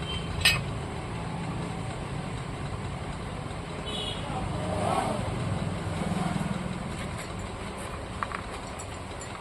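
Background road traffic running steadily, with one sharp metallic click about half a second in.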